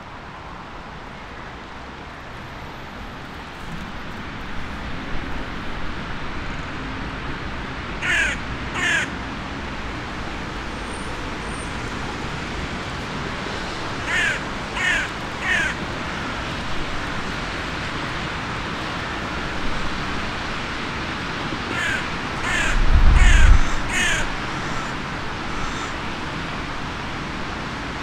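Crow cawing in short series: two caws, then three, then four harsh caws, over a steady background hiss. A brief low rumble, the loudest sound, comes during the last series.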